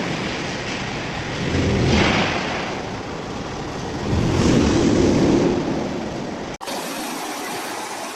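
Industrial wood shredder running and grinding wood, surging louder about two seconds in and again from about four to five and a half seconds in. It cuts off abruptly near the end to a thinner, steadier machine hum.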